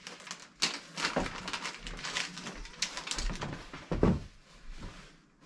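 Paper and plastic packaging rustling and crinkling in the hands as a boxed kitchen gadget is opened and its paper insert pulled out. There is one brief pitched sound about four seconds in.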